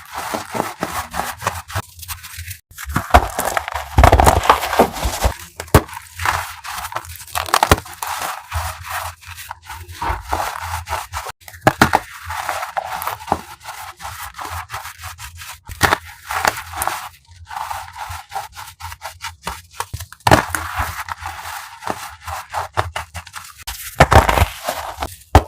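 Crumbly chalk blocks being crushed by hand, a dense run of crackling and crunching with heavier crunches about four seconds in and near the end.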